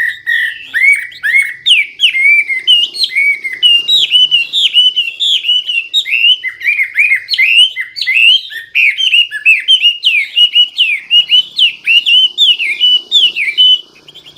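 Chinese hwamei singing loudly: a fast, unbroken run of varied short whistled notes that rise and fall, opening with a held note and stopping shortly before the end.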